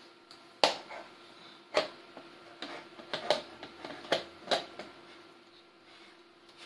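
Sharp clicks and clacks of a DSLR camera body being handled and fitted onto the telescope's metal field-flattener adapter, about seven knocks in the first four and a half seconds. A faint steady hum lies underneath.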